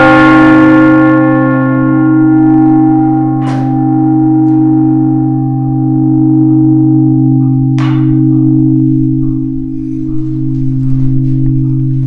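A very large hanging bell, rung by pulling the rope on its clapper, ringing on after one hard strike: a deep, loud hum that slowly swells and ebbs, with higher tones dying away over the first few seconds. Two lighter strikes ring out, about three and a half and eight seconds in.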